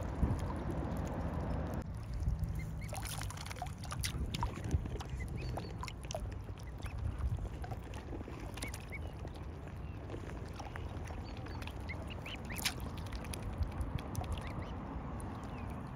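Mute swan cygnets peeping in short, scattered calls over a steady low rumble.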